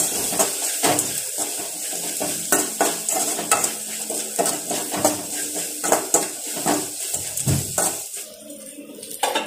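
A metal spatula scraping and clanking against a metal kadai as shallots and spices are stirred in hot oil, with a steady sizzle underneath. The stirring stops about a second and a half before the end, leaving a quieter sizzle.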